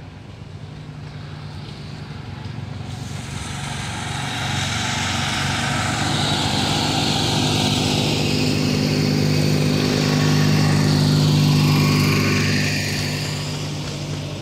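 A small tractor's engine running at a steady speed. It grows louder over about ten seconds as it comes close, then eases off a little near the end.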